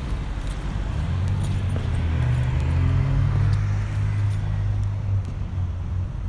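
A 2017 Suzuki GSX-R1000R's inline-four engine running through a Yoshimura exhaust at a steady low-rpm note. It gets louder in the middle and eases back after about five seconds, with a few faint ticks near the start.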